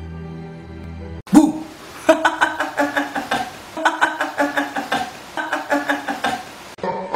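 Soft, sustained film-score music cuts off abruptly about a second in. A loud hit follows, then a fast, choppy loop of short pitched notes that repeats in phrases about every second and a half.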